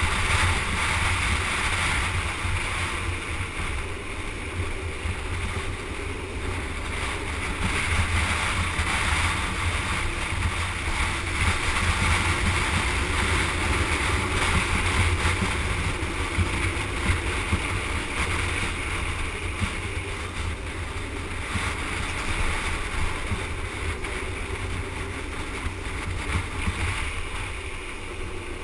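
Wind buffeting the board-mounted microphone over a street luge's wheels rolling on asphalt at speed: a steady rushing noise, easing slightly near the end.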